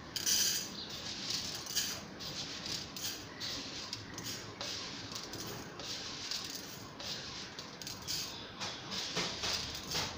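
Irregular light clinks, taps and knocks of kitchen utensils and cookware being handled on a countertop.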